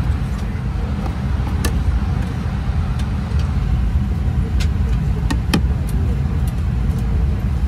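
Steady low rumble of an airliner during boarding at the gate, with a few sharp clicks and knocks, the clearest about a second and a half in and about five and a half seconds in.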